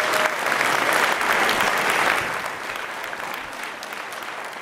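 Congregation applauding, loudest for the first two seconds and then slowly dying down.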